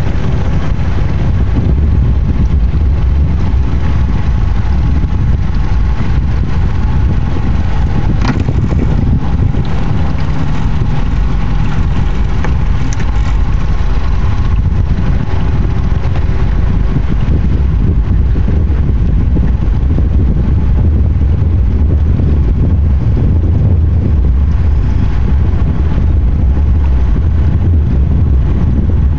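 A Marlow motor yacht's inboard diesel engines running steadily under way, a deep, even rumble.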